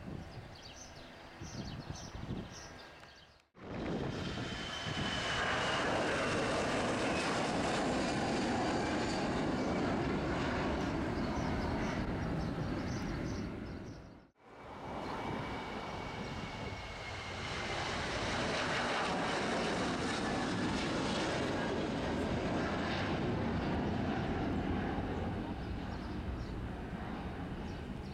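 Jet airliner engines at climb power as planes pass overhead after takeoff, with a high whine that slides down in pitch on each pass. The sound cuts off about three seconds in and again about halfway through, then starts again on a new pass; the last is a Boeing 737.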